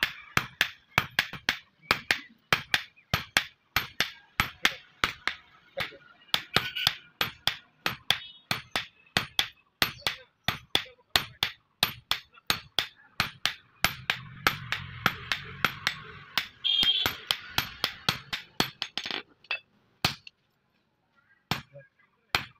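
Hand hammer forging a hot steel billhook blade on an anvil: sharp blows in a fast, even rhythm of about two to three a second. The blows stop near the end, with only a few single strikes after.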